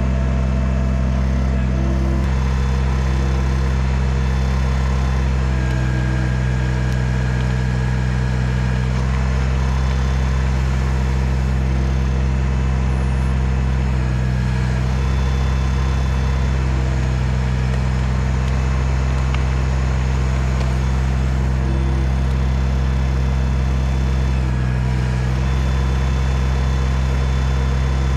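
Kubota BX compact tractor's three-cylinder diesel engine running steadily while the backhoe works, its note shifting briefly a few times under load.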